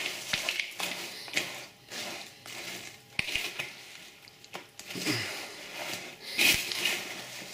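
A spatula stirring and folding broken biscuits and nuts through melted chocolate in a glass bowl: irregular scraping and rubbing, with a few sharp clicks.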